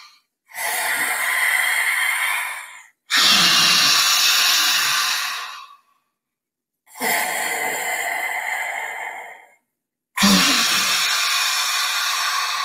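A woman doing lion breath: forceful breaths in and out through the wide-open mouth with the tongue stretched out and down. There are four long, loud breaths of about two and a half seconds each, separated by short pauses, and the second and fourth are the strongest.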